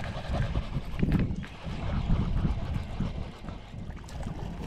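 Wind buffeting a chest-mounted GoPro's microphone, an uneven low rumble, with a few brief knocks about a second in and again near the end.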